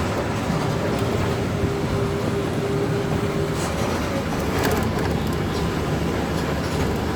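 Steady rumble and running noise of a moving road vehicle, holding an even level throughout, with a faint steady whine for a couple of seconds in the middle.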